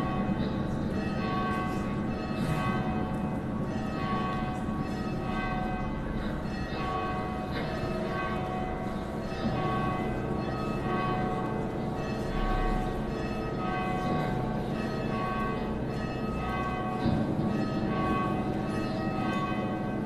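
Bells struck about once a second and left ringing, their tones overlapping into a continuous wash over a low steady hum, as a sound score.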